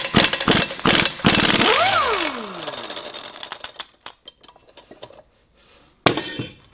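Pneumatic impact wrench run in reverse to back a nut off a threaded bolt: a burst of rapid hammering, then the air motor spins free and winds down with a falling whine about two seconds in. A few light clicks follow, and there is a second short burst of the wrench near the end.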